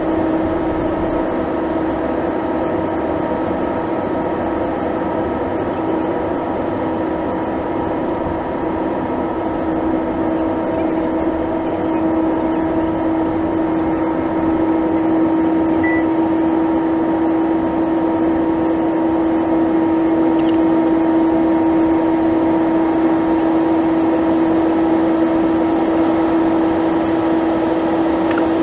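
Cabin noise of a Boeing 737-800's CFM56-7B turbofan engines in the climb, heard beside the wing: an even rush of air with a strong steady hum and several fainter steady tones above it, growing slightly louder about halfway through.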